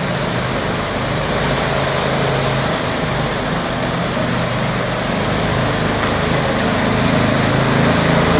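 Small engine of a motorized pit kart running steadily as the kart drives along, growing slowly louder as it comes closer.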